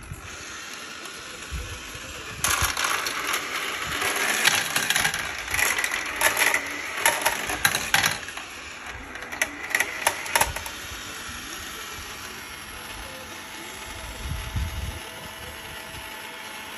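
Glass marbles rolling and clattering down through a plastic toy track playset, clicking against the plastic and against each other as they drop into the collection chute. The clatter starts about two and a half seconds in and dies away after about ten seconds.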